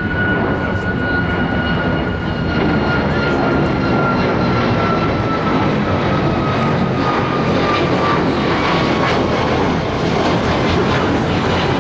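Airplane passing overhead: a loud, steady rumble with an engine whine that slowly falls in pitch.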